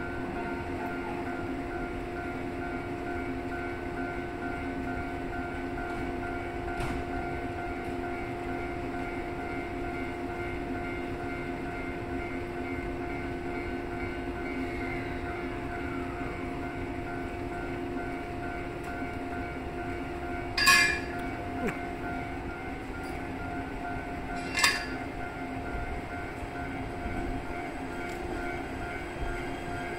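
Electric trains standing at a platform, their equipment giving a steady hum at several fixed pitches as a Shinano Railway SR1 series train departs. Two short, loud bursts about 21 and 25 seconds in.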